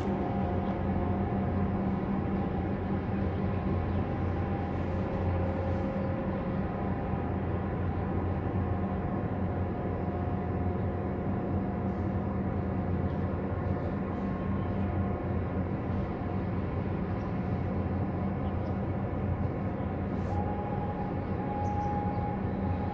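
Large container ship's diesel engine running, a low steady drone with a hum.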